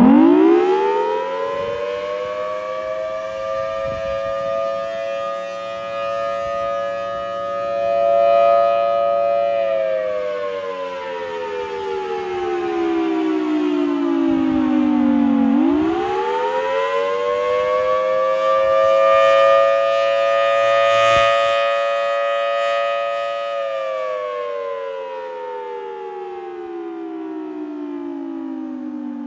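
Federal Signal Thunderbolt 1000T storm siren sounding its attack signal: the tone winds up in about two seconds, holds high for several seconds, then slowly glides down, twice over, beginning a third rise at the very end. Its loudness swells and fades while the pitch holds.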